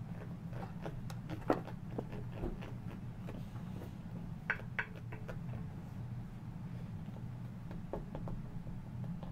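Small digging tools tapping and scraping on a plaster dinosaur-excavation block: scattered light clicks, a sharper one about a second and a half in and a couple more near the middle, over a steady low hum.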